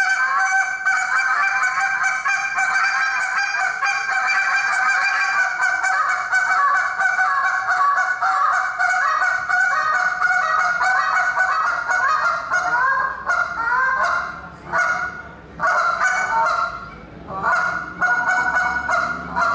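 A handheld goose call blown in a competition calling routine, imitating goose honks. It runs as a fast unbroken string of notes for most of the stretch, then breaks into shorter separate calls with brief pauses in the last several seconds.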